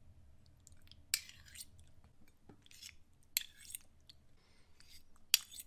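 Metal fork and spoon scraping and clinking against a ceramic plate while spaghetti is twirled and sauce is spooned on: three sharp scrapes, about a second in, midway and near the end, over a faint low hum.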